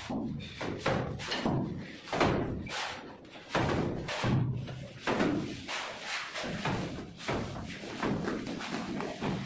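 Cement-sand mortar flung onto a wall from a plastic scoop, landing in a series of thuds at an irregular pace of about one or two a second.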